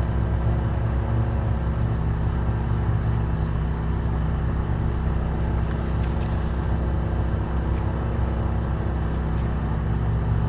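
Generator running steadily while powering a portable air conditioner: an even, unchanging low hum.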